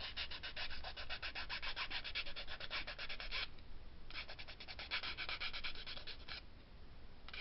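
Ink pad rubbed quickly back and forth along the edge of a paper die-cut sentiment to ink its edges. The strokes come in two runs with a short pause between.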